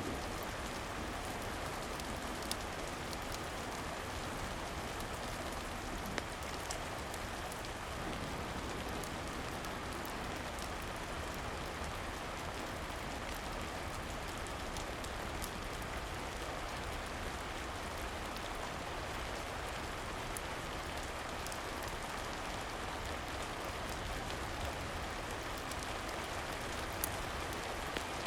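Steady rain falling, with scattered faint sharp crackles from a wood fire.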